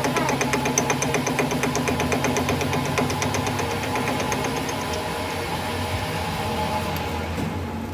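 Metal lathe running steadily, with a fast, even ticking that fades out about two-thirds of the way through.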